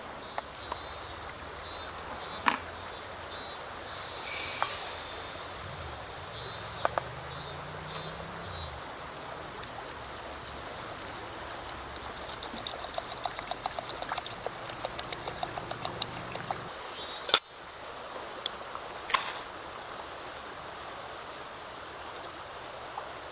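Steady rushing of flowing water, with scattered clicks and a run of small rapid crackles for several seconds past the middle, one sharp click standing out near the end.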